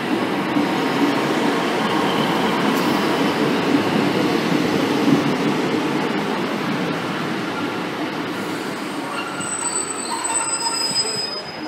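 Arriva Trains Wales Class 150 Sprinter diesel multiple unit running into the platform and slowing, a steady rumble of wheels and engines. High brake squeal sets in about nine seconds in as it draws to a stop.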